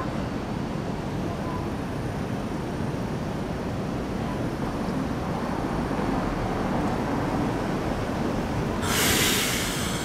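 Steady low rumble of road and rail traffic at a street crossing, with a loud hiss lasting about a second near the end.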